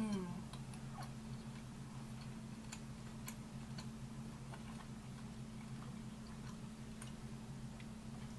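A person chewing a bite of beef with the mouth closed: sparse faint mouth clicks over a steady low hum, after a short 'mmm' falling in pitch at the start.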